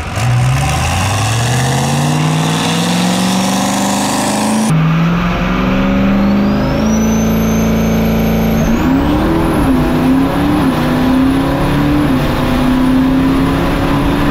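A 1500-horsepower boosted drag race truck launching and making a full-throttle pass, its engine pitch climbing steeply and then stepping up again through the gear changes, with a high whine rising alongside. The sound is heard first from beside the strip, then, about a third of the way in, from the in-car camera.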